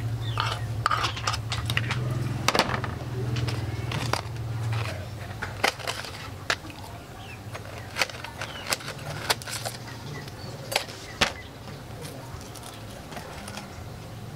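Kitchen utensils and cookware knocking and clinking in scattered sharp strikes during cooking, with faint voices and a low hum in the first few seconds.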